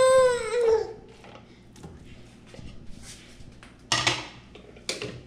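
A young child's high, drawn-out voice, rising then falling, in the first second, then kitchen handling noises. Two short clatters come about four and five seconds in as the enamel pot and a wire-mesh strainer are handled.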